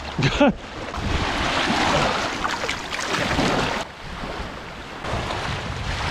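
Small waves washing onto a sandy beach, with wind buffeting the microphone. A brief pitched cry comes near the start, and the noise drops abruptly about four seconds in.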